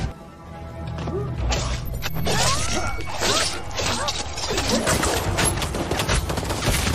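Film sound effects: after a short quieter moment, a dense, rapid run of knocks, clicks and sharp impacts begins about a second and a half in, with short wavering higher sounds mixed among them.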